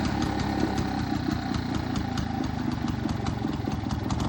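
The small gasoline engine of a 1947 Frazer walk-behind rototiller running steadily, with a rapid even firing beat.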